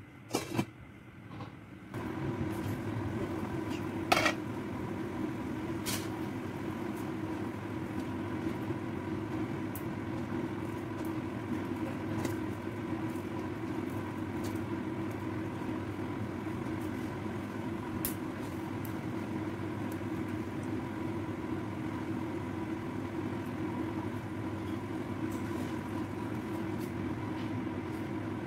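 A steady hum starts abruptly about two seconds in and carries on evenly, with a few short clinks of a ladle and bowl against a stainless-steel pan of simmering soup.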